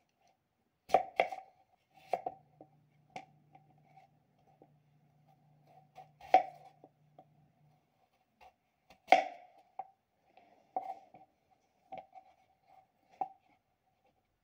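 A kitchen knife slicing through a peeled raw potato and knocking on the cutting board beneath, about ten sharp knocks at irregular spacing.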